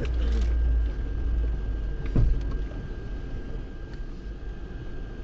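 Lada Niva Bronto's engine and drivetrain rumbling low inside the cabin while driving slowly over a rough off-road track, louder in the first second and then easing. A single sharp knock about two seconds in.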